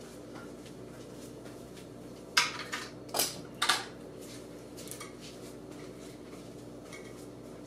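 Hard objects knocking and clattering as they are handled and moved about: three sharp clanks between about two and four seconds in, then a couple of lighter knocks, over a steady low hum.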